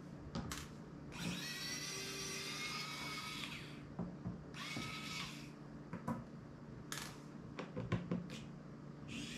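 Small electric precision screwdriver working phone screws, its motor whining in bursts: a long one a second or so in, a short one around the middle, and another spinning up near the end. Between the bursts come sharp clicks and taps of the tool and small parts on the table.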